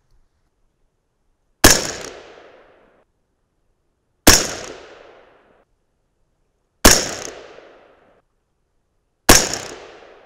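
Four rifle shots from a 20-inch-barrelled AR-15-style rifle firing 5.56 Mk 262 factory rounds, about two and a half seconds apart, each followed by an echo that dies away over about a second.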